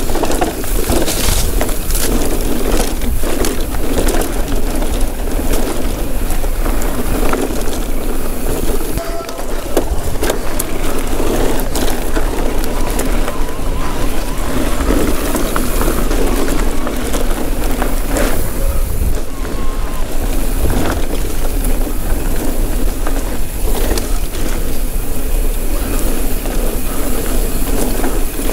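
Electric mountain bike rolling down a rough trail on knobby tyres, with a Vittoria Mazza tyre up front: continuous crunching rolling noise over dirt and stones, many sharp clicks and knocks as the bike rattles over bumps, and a steady low rumble underneath.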